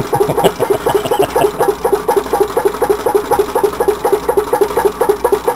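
Home-built tin-can Stirling engine running on a stove burner, rattling in a fast, steady rhythm of several clacks a second.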